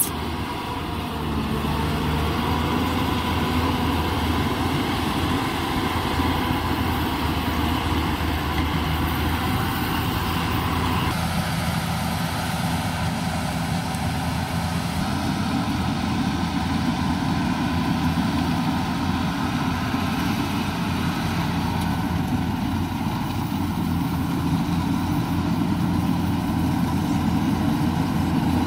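Yanmar 850 rice combine harvester's diesel engine running steadily under load while cutting rice in boggy ground. The engine note shifts about eleven seconds in.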